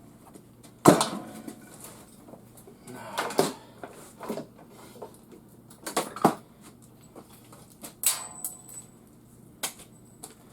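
Metal parts of a garage door opener clanking and knocking as it is taken apart by hand: a handful of separate knocks, the loudest about a second in, one near the end giving a brief high ring.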